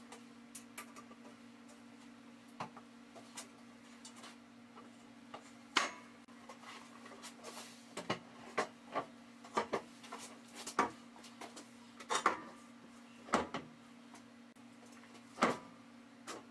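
Scattered knocks and clatters of a heavy oak cutting board with metal folding legs being handled and set in place, the loudest in the second half, over a steady low hum.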